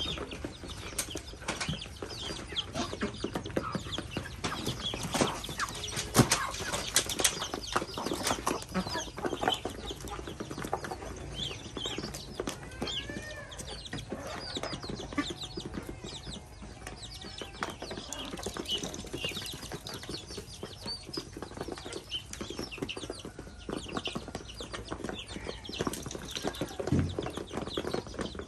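A mixed flock of chickens, chicks and ducklings feeding: a dense run of rapid pecking and bill-clicking at the feed, with a few short peeps and soft clucks now and then.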